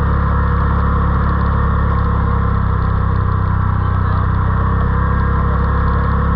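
Yamaha Wolverine RMAX side-by-side engine running at a steady speed under way, a constant drone with no revving up or down.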